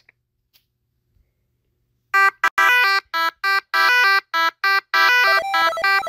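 Silence, then about two seconds in a buzzy electronic beep starts, repeating at a steady pitch about three times a second.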